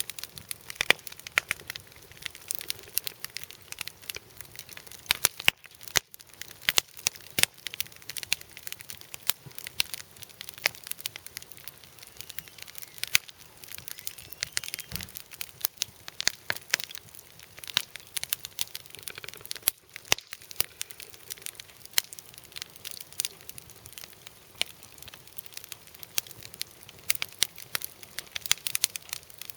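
Small wood campfire burning and crackling, with many irregular sharp pops and snaps over a faint hiss.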